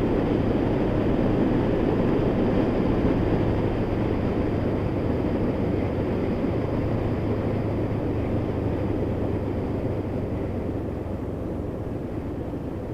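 Honda VFR800's V4 engine running steadily on the move, with a dense rush of riding noise. It grows gradually quieter over the second half.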